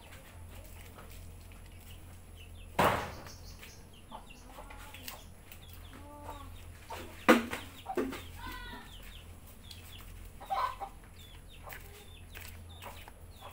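Chickens clucking in short repeated calls, broken by a few sharp clatters, the loudest about three seconds in and again about seven seconds in.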